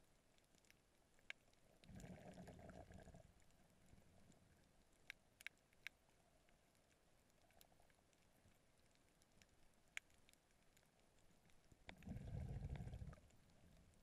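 Faint underwater sound heard through a camera below the sea surface: scattered sharp clicks and crackles, with two muffled low whooshes, each about a second long, about two seconds in and near the end.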